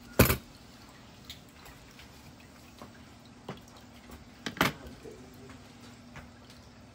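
Utensils clicking and knocking against a plastic plate while an avocado pit is pried out of its half: a sharp knock just after the start, a double knock about four and a half seconds in, and a few lighter clicks between, over a low steady hum.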